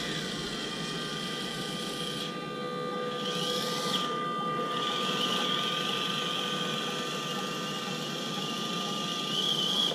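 Electric motor and gear drive of a 1/18-scale RC crawler truck whirring as it climbs a steep incline. It comes in spurts at first and runs more steadily from about five seconds in.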